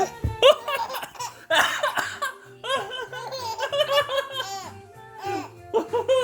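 A baby laughing in repeated bursts of short, high giggling calls, over background music.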